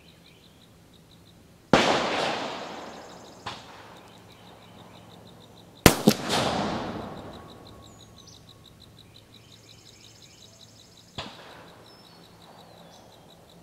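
Uberti Walker .44 cap-and-ball revolver firing full-charge 55-grain round-ball loads: two loud shots about four seconds apart, each trailing off in a long rolling echo, then a weaker sharp crack about eleven seconds in.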